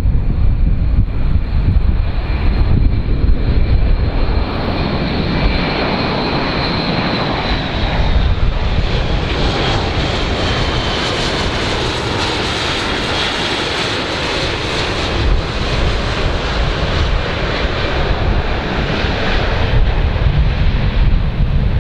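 Airbus A400M's four TP400 turboprops and eight-bladed propellers running as the aircraft flies low past, a steady loud drone with low rumble and a high whine that sags slightly in pitch as it passes.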